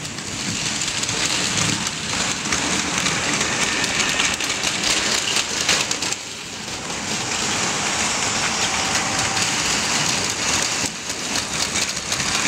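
Battery-powered Plarail Advance toy trains running on plastic track: a steady whirring and rattling of their small motors and wheels, dipping briefly twice.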